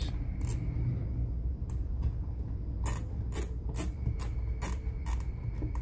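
The plastic temperature dial of a Black & Decker Quick Press steam iron being turned by hand, clicking through its settings: a run of light clicks, about two a second, in the second half, over a steady low hum.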